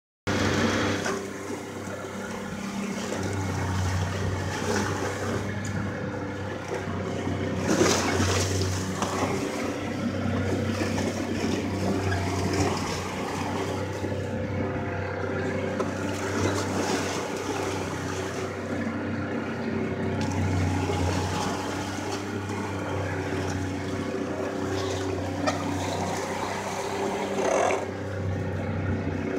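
Boat engine running steadily at an even pitch while under way, with water rushing and splashing along the hulls. There is a louder rush of water about eight seconds in.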